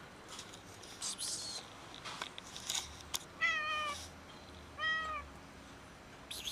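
Hungry stray cat meowing twice to ask for food, about a second apart, the first call wavering and the second shorter and arched. A few brief scratchy noises come before the meows and near the end.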